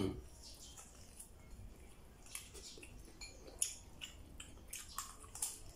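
Close-up eating sounds of a man chewing a mouthful of food: soft wet chewing and lip-smacking clicks, coming more often in the second half, with a soft knock at the very start.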